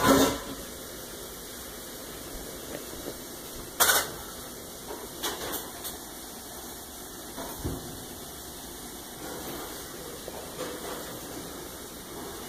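Steady hiss of an aquarium's bubbling water, broken by a handful of sharp knocks from fingers tapping on the tank glass, the loudest at the start and about four seconds in.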